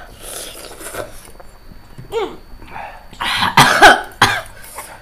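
A person coughing in a quick run of about three harsh coughs a little past the middle, set off by very spicy Buldak noodles burning the throat.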